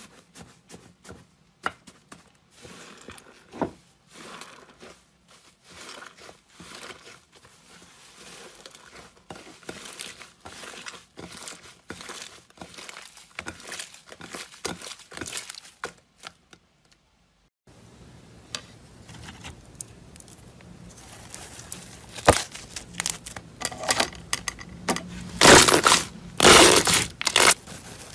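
Crumbly, crunchy slime being stretched and kneaded by hand: dense crackling and tearing with many small pops. After a short pause about 18 seconds in, a different slime is squeezed with louder crackling and sharp snaps.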